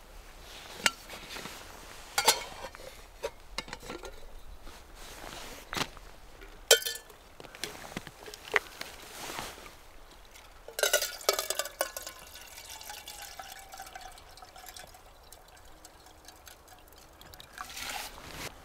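Clinks and knocks of a small metal camping kettle being handled on a canister gas stove, then water poured into the kettle from a water bottle, with a tone that glides slowly downward as it pours.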